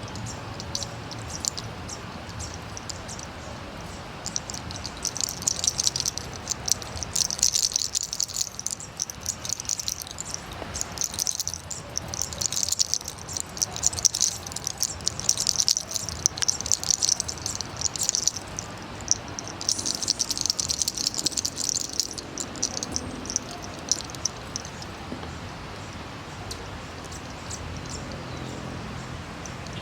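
Fingers rubbing and scratching through hair in a head massage, a dense crackly rustle that comes in spells for most of the middle of the stretch over a steady background hiss.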